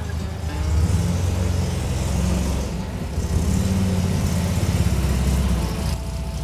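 1966 MGB's four-cylinder engine running as the car moves off.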